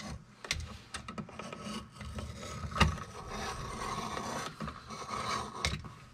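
Utility knife scraping along the plastic outer jacket of 12/2 Romex cable, slitting the sheath to strip it, with a few sharp clicks of handling, the loudest about halfway through.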